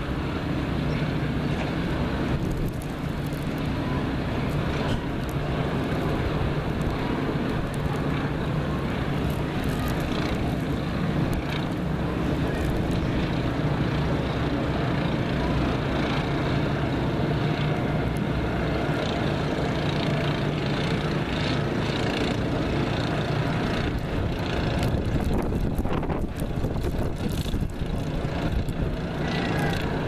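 Steady blizzard wind rushing across the microphone, with a low steady hum beneath it.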